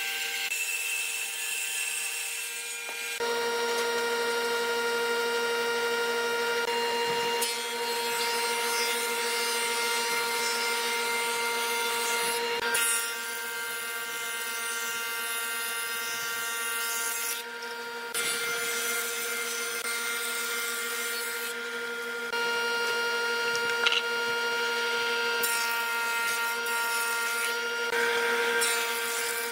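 Woodworking machines cutting wood, with a steady motor whine throughout: a table saw ripping a board at the start, then the thickness planer of a combination woodworking machine planing boards. The cutting noise changes abruptly several times as one pass gives way to the next.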